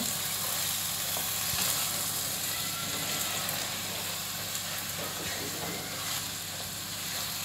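Raw rice and red lentils frying in oil in a pan, sizzling steadily while a wooden spatula stirs and turns them over. This is the frying stage of bhuna khichuri, before the water goes in.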